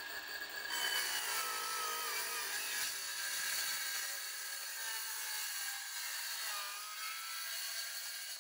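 Cordless circular saw making a plunge cut into a timber board: the spinning blade bites into the wood about a second in and cuts steadily, its motor whine wavering in pitch under load. The sound cuts off at the very end.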